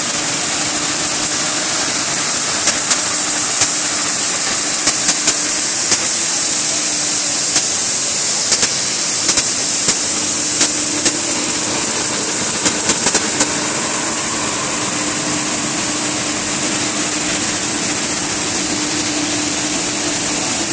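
PP/PE film pelletizing line with a 100 mm screw extruder running: a loud, steady machine noise with a high hiss and a low hum. Scattered sharp clicks sound through the first half or so.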